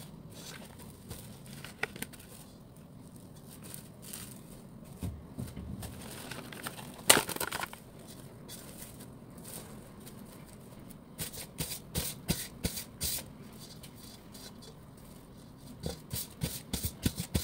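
Plastic cling wrap pulled from its box and torn off sharply about seven seconds in, then crinkled and pressed over a metal mixing bowl, with quick runs of crackling near the end.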